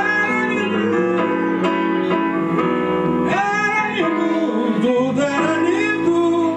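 Live soul music: a man singing into a microphone with instrumental backing, in long held notes that slide up and down.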